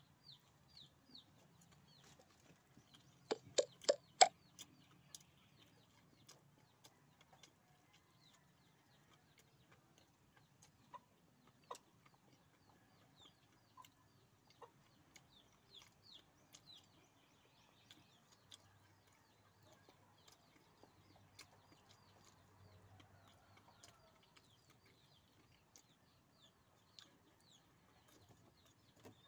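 Chickens clucking, with a short burst of loud clucks about three to four seconds in and faint high chirps repeating throughout.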